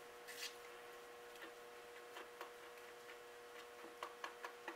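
Faint, irregular light clicks and taps of a plastic spoon stirring glue, glitter and water in a plastic mixing bowl, over a faint steady hum.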